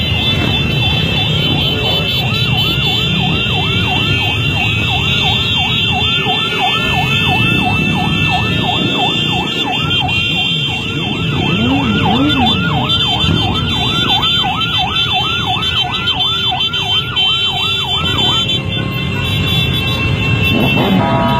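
A siren yelping fast, about two to three cycles a second, over the engines of a large crowd of motorcycles running together; the yelp stops about 18 seconds in. A slower siren wail rises and falls twice near the middle.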